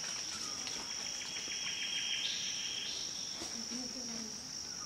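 Forest insects droning: a steady high-pitched whine, joined for about three seconds by a second insect's lower buzz that steps up in pitch shortly before it stops.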